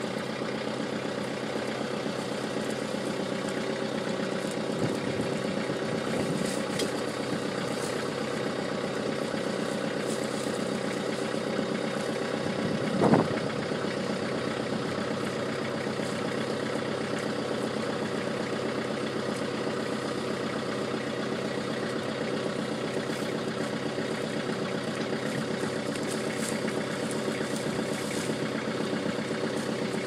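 An engine idling steadily, with a brief thump about thirteen seconds in.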